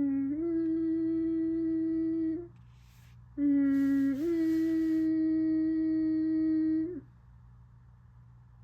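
Federal Signal Modulator II electronic siren sounding two long steady tones about a second apart, the second longer. Each starts on a low note and steps up to a slightly higher one about half a second in.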